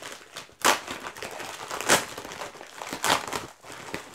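Shipping package being torn open and its wrapping crinkled, with three louder rustles about a second apart.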